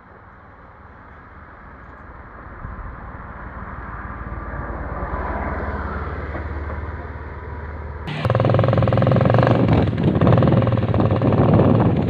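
A motor vehicle's engine running, growing louder over several seconds, then suddenly much louder and closer about eight seconds in.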